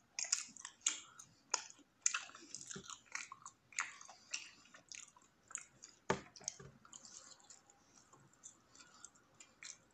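Close-up chewing of a bread sandwich: an irregular run of short, sharp mouth clicks and wet smacks, with one louder smack about six seconds in.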